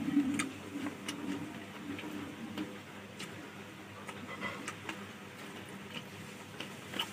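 Eating sounds: chewing with scattered wet mouth clicks and smacks, irregular, about one or two a second.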